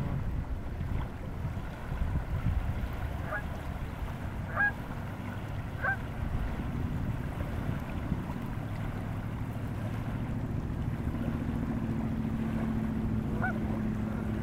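Canada geese giving several short, spaced honks over low wind rumble on the microphone and lapping water. A steady low hum comes in about eight seconds in.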